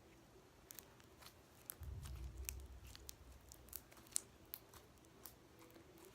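Slime being stretched by hand, giving faint, scattered sticky clicks and pops, with a brief low rumble about two seconds in.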